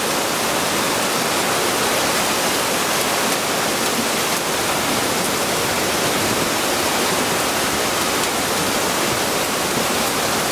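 Flash-flooded creek roaring: a torrent of rushing white water making a loud, steady noise.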